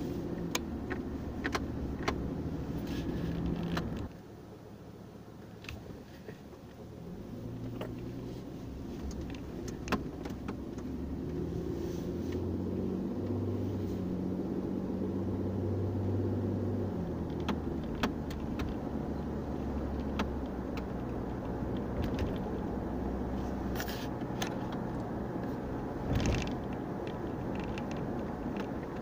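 Car interior while driving: steady engine and road hum. It drops quieter for a few seconds about four seconds in, then builds up again over the next several seconds, with occasional small clicks and rattles.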